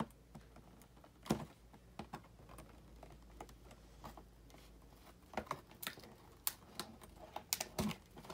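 Scattered light clicks and taps of fingers handling a cardboard toy box with a plastic window, irregular, with a cluster near the end.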